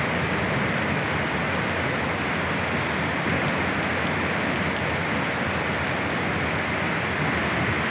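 Steady, even rushing roar of a severe storm, with wind and heavy rain sweeping over the scene.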